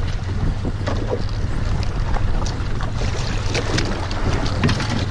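Boat engine running with a steady low hum while the boat sits in rough water, with wind buffeting the microphone and scattered small knocks and splashes.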